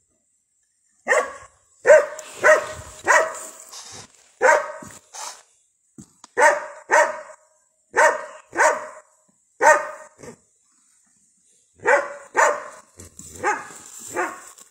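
Cadaver-search dog barking over and over, often in pairs, about one bark a second.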